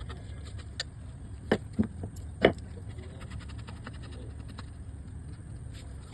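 Sharp knocks of wood-carving work, four within about two seconds, the last the loudest, over a steady low hum.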